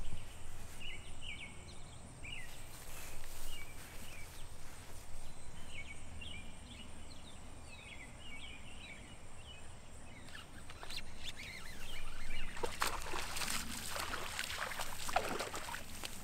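Small birds chirping over a faint outdoor background. From about twelve seconds in, louder splashing and sloshing at the water's surface as a hooked small bass thrashes near the bank while it is reeled in.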